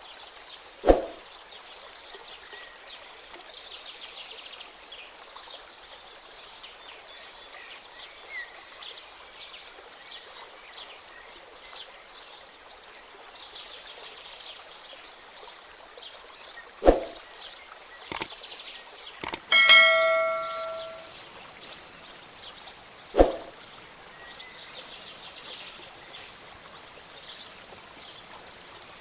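Steady outdoor background ambience, broken by a few sharp clicks and, about two-thirds of the way in, a single bell-like ding that rings out for about a second.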